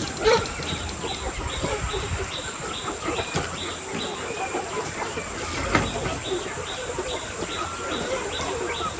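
A flock of chickens calling and clucking at once over a steady background noise, with a few brief knocks.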